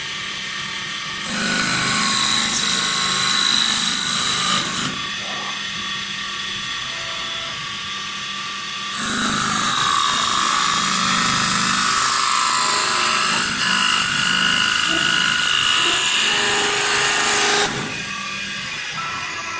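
CNC wood-turning lathe cutting a spinning wood blank in two loud spells: one from about a second in lasting some three and a half seconds, and a longer one from about nine seconds in until shortly before the end. Each cutting spell is a hiss with steady high whining tones over the machine's running hum, which carries on between and after them.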